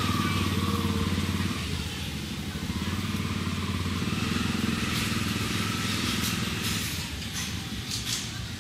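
A vehicle engine running nearby, a steady low rumble that is louder through the first half and eases off near the end.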